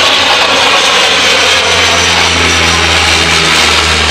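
The turboprop engines and propellers of a de Havilland Canada DHC-8 Dash 8 running as it lands, a steady loud drone with a whine above. A low propeller hum grows stronger about halfway through.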